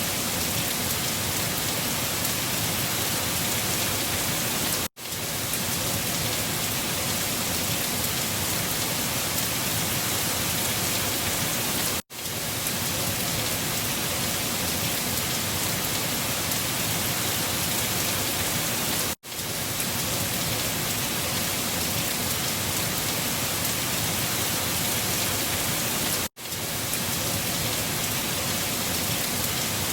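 Looped storm recording: an even, steady rushing hiss that drops out for a split second and swells back four times, about every seven seconds, at the seams of the loop.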